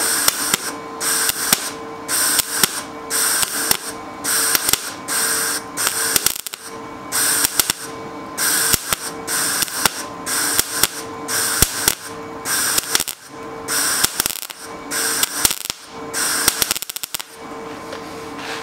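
MIG welder laying short stitch-weld bursts, about one a second, each a crackle of a second or less with short pauses between, over a steady hum. The weld is being built up bit by bit to bridge and fill a rust hole in the thin sheet steel.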